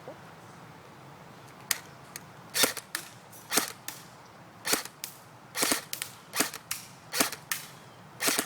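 JG M5-S6 airsoft electric gun (AEG) firing about a dozen sharp single shots at uneven intervals, starting nearly two seconds in. A few of the shots come in quick pairs.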